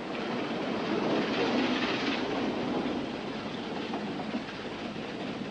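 Narrow-gauge steam train running through a tunnel: a steady rumble of wheels and locomotive, a little louder in the first few seconds, then easing slightly.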